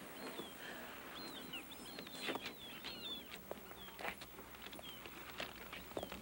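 Faint outdoor ambience of small birds chirping in quick short calls, busiest in the first half, with a few scattered light knocks.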